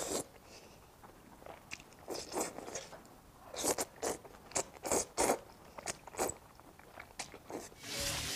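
Close-up slurping and chewing of thick, sauce-coated fried rice noodles: a series of short wet bursts, the loudest run about three and a half to five and a half seconds in. Near the end, a steady rush of running tap water with low background music takes over.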